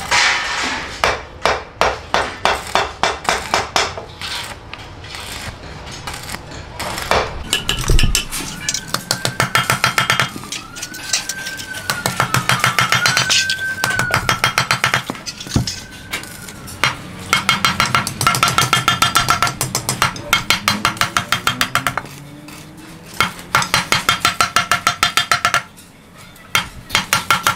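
Rapid strokes of a wooden mallet on stainless-steel sheet laid over a steel channel, bending the sheet's edge. The strokes come in long fast runs of several a second with a ringing metallic note, pausing briefly twice near the end. A faint wailing tone rises and falls in the background for a few seconds midway.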